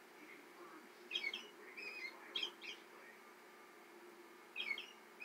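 American robin song played back through a tablet's small speaker: several short, quickly rising and falling phrases with gaps between them.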